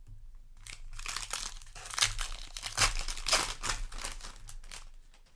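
Foil booster pack wrapper crinkling and crackling as it is handled and torn, a dense irregular run of crackles that fades near the end.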